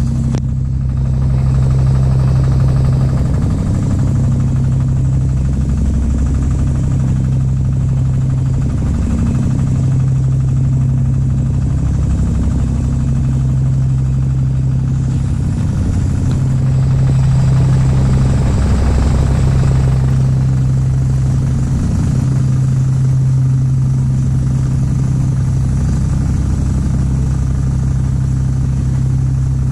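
Small boat's engine running steadily at low speed, a continuous low drone.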